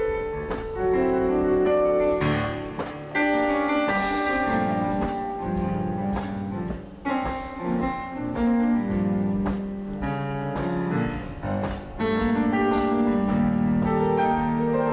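Electronic keyboard playing sustained chords and melody lines, with a few sharp strikes among them.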